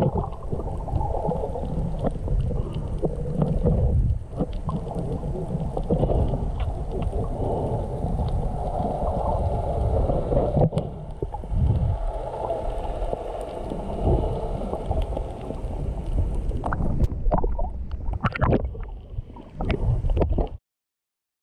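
Underwater sound of the open sea: a steady rumble of water against the camera, with scattered clicks from wild dolphins. The clicks grow more frequent near the end, then the sound cuts off suddenly.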